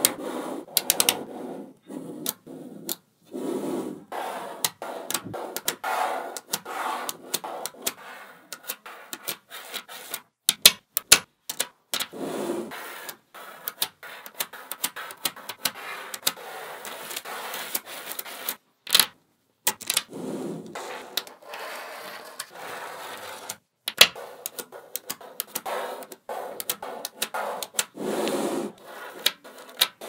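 Small neodymium magnet balls clicking and snapping together, with many sharp clicks in quick runs and softer rubbing and scraping as rows of balls are pushed along the tabletop into place.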